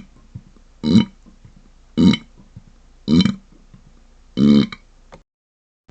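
Closed-mouth burps: four short, muffled burps about a second apart, the last a little longer, then dead silence near the end.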